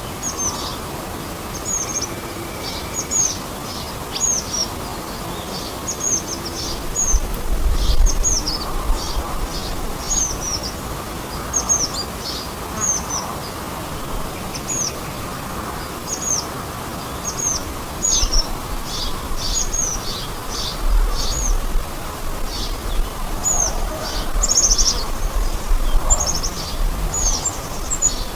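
Small birds chirping: short, high, downward-sweeping calls repeated roughly once a second, over a steady background hiss. A low rumble comes and goes, around the eighth second and through the last third.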